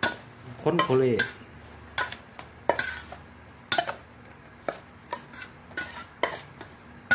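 A spoon clinking and scraping against a pan as seasoned beef salad is stirred and tossed, in irregular sharp knocks about once or twice a second.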